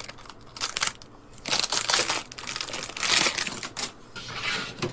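Packaging crinkling and rustling as it is handled, in several irregular bursts.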